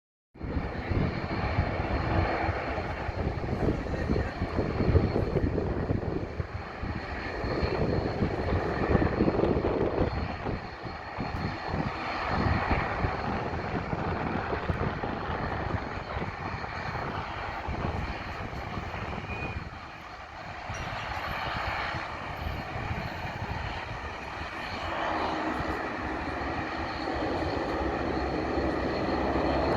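Bombardier Dash 8 Q400 turboprop airliner, its two Pratt & Whitney PW150A engines running with a steady high whine over a rumble that swells and fades.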